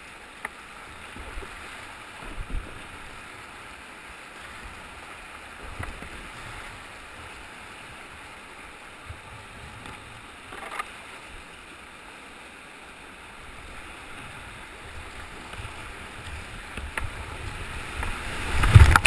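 Whitewater river rapids rushing steadily around a kayak, picked up by a camera on its bow deck, with a few brief knocks and splashes. Near the end the splashing grows much louder as the kayak runs into a big foaming rapid and water hits the hull and camera.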